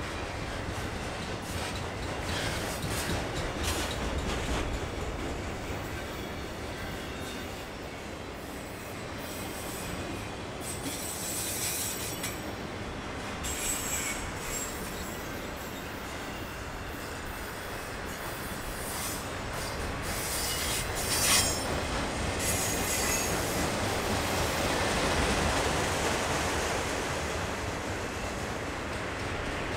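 Autorack freight cars rolling past close by: a steady rumble of steel wheels on rail, with high-pitched wheel squeal about a third of the way in and again, loudest, about two-thirds through.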